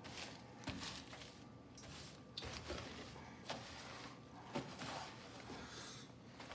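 Paper towel rubbing and scraping across a gas stovetop in irregular strokes, wiping up caked-on debris, with a few light ticks along the way.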